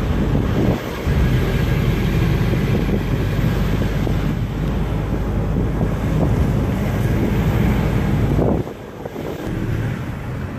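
Moving car heard from inside the cabin: a steady low rumble of road and engine noise with wind buffeting the microphone. The rumble drops noticeably about eight and a half seconds in.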